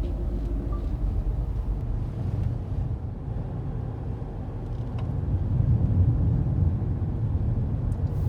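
Car driving, heard from inside the cabin: a steady low road and engine rumble, swelling somewhat louder about halfway through.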